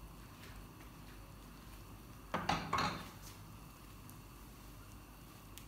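A ceramic bowl set down on a gas stovetop, with two quick clattering knocks about two and a half seconds in.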